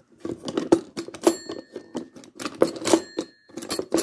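The plastic dial of a The First Years toy rotary telephone being turned by hand, making a run of irregular clicks and rattles.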